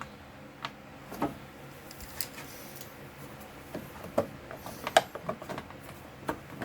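Irregular light clicks and knocks of a ratchet, screws and plastic parts being handled, as the bottom plastic cover of a snowblower is unscrewed and lifted off.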